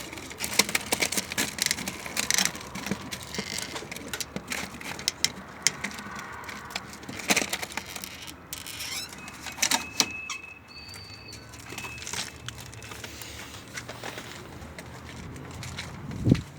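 Pigeons moving about in a loft: scattered clicks, scuffles and wing flaps, with a brief thin high tone about ten seconds in.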